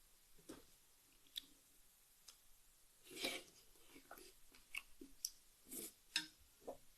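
Faint chewing by a person eating from a pot, with scattered light clicks and taps, about a dozen in all, the clearest a little past three seconds in.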